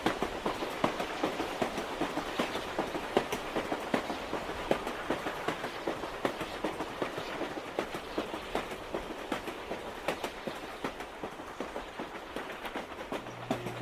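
Train running on rails: a steady rumble with many irregular clicks and rattles. Guitar music comes in just before the end.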